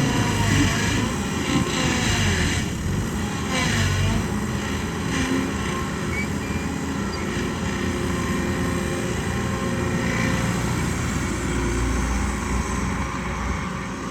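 Diesel engine of a Kobelco SK120 Mark 3 hydraulic excavator running steadily under load while it digs and loads soil into a dump truck, with a few short knocks and scrapes in the first few seconds.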